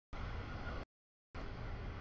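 Noisy rumble of a double-stack container freight train rolling past, heaviest in the low end. The audio keeps dropping out: two stretches of under a second each, separated by about half a second of dead silence.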